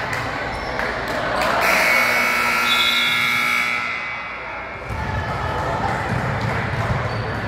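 Youth basketball game sounds: a ball bouncing on the court amid voices, with a steady high tone lasting about two seconds, starting a second and a half in.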